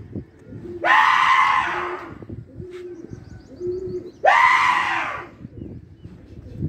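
A man gives two long, loud, wordless hollers, each about a second long, about three seconds apart: a pigeon flyer calling to his flock in the air.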